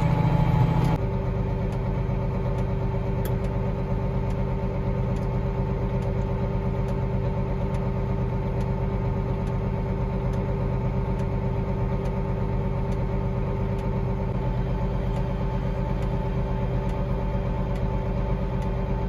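Case IH Magnum 7230 tractor's six-cylinder diesel running steadily, heard from inside the cab while it pulls a silage wagon in the field. A steady drone that dips slightly in level about a second in.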